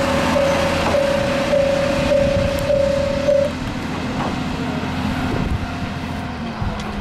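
Level-crossing warning bell ringing in a steady beat of about two strokes a second, stopping about three and a half seconds in, over the low drone of the Kanto Railway KiHa 2402 diesel railcar's engine as it pulls away.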